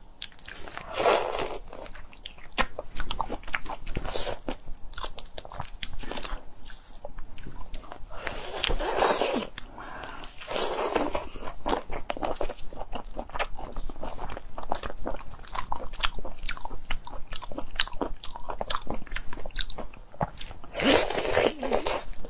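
Close-miked eating of raw marinated prawns: shells cracking and crunching between the teeth, with wet chewing. A few longer, louder wet sucking stretches come through, about a second in, around the middle and near the end.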